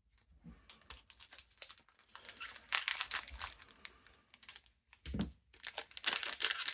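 Foil booster pack wrapper crinkling and tearing as it is handled and opened: a run of rapid crackles that gets louder about two seconds in and again near the end.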